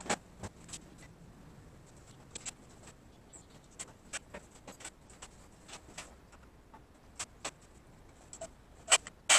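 Scattered clicks and knocks of tools being handled and set down on a wooden workbench, among them a portable band saw, at irregular moments; two loud knocks near the end.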